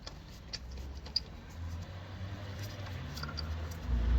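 Light metallic clicks and scraping of a wheel bolt being handled and threaded into a car's wheel hub by hand, with a couple of sharper ticks. A low rumble comes up near the end.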